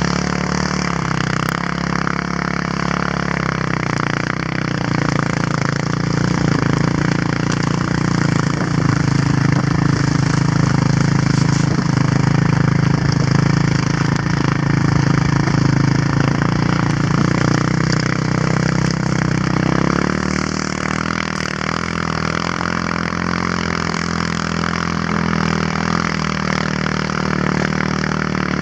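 Quad (ATV) engine running steadily while towing a sled through snow, over a constant hiss of the sled sliding on snow. The engine gets louder for a stretch in the middle and eases off again about twenty seconds in.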